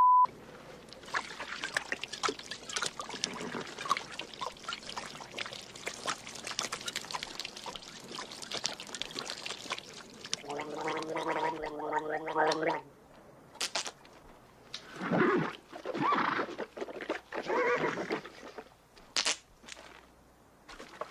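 A brief 1 kHz test tone with colour bars, then film-clip audio: a steady windy hiss, one long strained, hoarse cry held for about two seconds near the middle, and several short raspy vocal outbursts later on.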